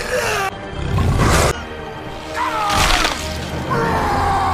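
Action-scene soundtrack: dramatic score music layered with several sharp hits and swooshes of fight sound effects.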